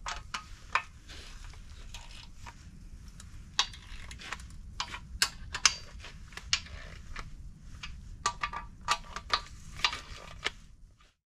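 Wrench clicking and metal clinking while bolts are tightened down on a BMW N54 aluminium engine block's main bearing bedplate, irregular sharp clicks over a low steady hum. The sound cuts off abruptly near the end.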